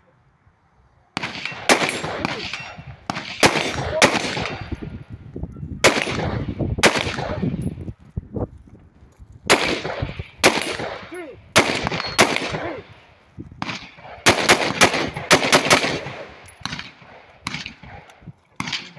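Rapid gunfire from a competition shooter working through a stage. The shots come in quick pairs and strings with short pauses between, beginning about a second in, each followed by a brief echo.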